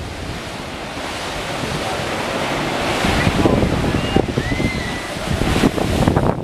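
Heavy surf: big waves breaking and washing in a rough sea, the roar swelling towards the middle, with wind buffeting the microphone.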